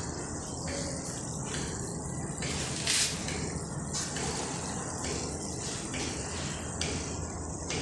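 Bubbles in liquid popping: a steady gushing bubble noise with irregular sharp pops every half second to second, the loudest about three seconds in.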